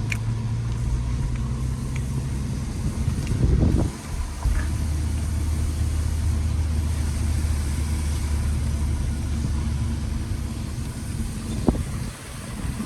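Car engine and road noise heard from inside the moving car's cabin, a steady low drone. It shifts briefly about four seconds in and eases off near the end.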